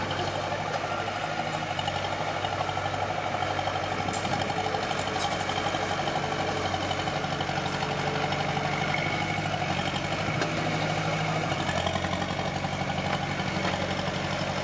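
Diesel engine of a mini bulldozer running steadily, with an even, unbroken engine note.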